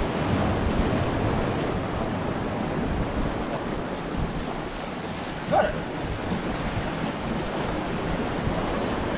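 Waves washing against a rocky shoreline, with wind buffeting the microphone. One short louder sound a little past halfway.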